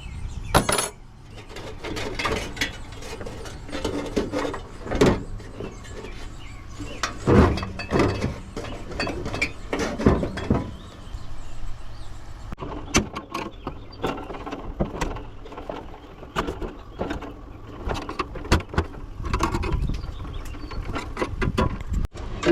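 Irregular clinks, clanks and knocks of metal parts and hand tools as a coffee maker is taken apart, over a low steady hum.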